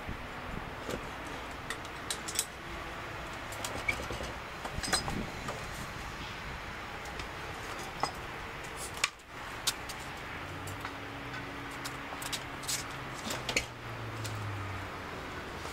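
Scattered light metallic clinks and taps from the engine hoist's chain and hook and the hanging engine as it is lowered and guided into the engine bay. A low hum comes in about ten seconds in and fades near the end.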